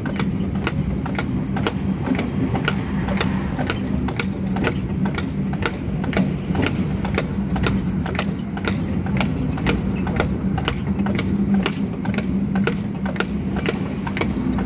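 A tram horse's hooves clip-clopping at a steady walk on the road surface, about three sharp strikes a second, over the continuous rumble and rattle of the horse tram's wheels rolling on the rails.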